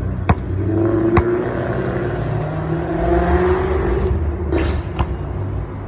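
A car passing by, its engine swelling over a few seconds and then fading, with a basketball bouncing sharply three times.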